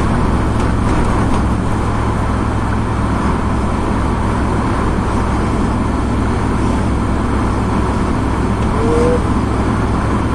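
Steady road and engine noise inside a car's cabin while driving on a highway, with a constant low rumble.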